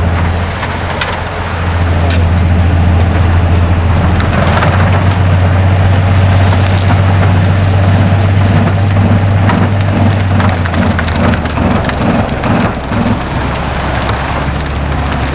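Railway rotary snow blower working through hard-packed snow: a loud, steady low drone from the machine under load, under a rushing hiss of snow being cut and thrown, with scattered clicks and knocks. The drone drops a little in pitch about eleven seconds in.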